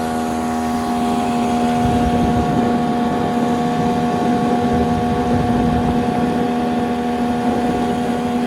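Speed 15 hp outboard motor running steadily under way at speed, its engine tone even, with water and wind rushing past the hull.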